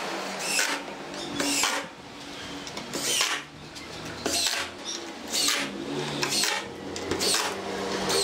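Makita cordless impact driver driving screws into wood in short bursts, about one a second.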